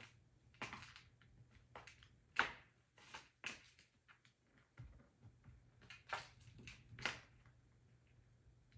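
Cat playing with a toy mouse: scattered light taps and scrapes, about six of them at irregular spacing, the sharpest about two and a half seconds in.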